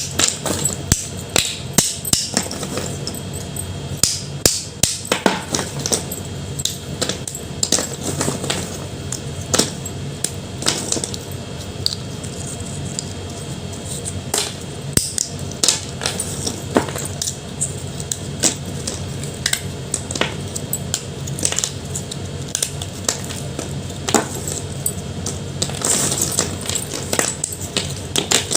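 Chalk crunching and snapping close up: an irregular run of sharp cracks and crumbles, sometimes several in quick succession, with short gaps between.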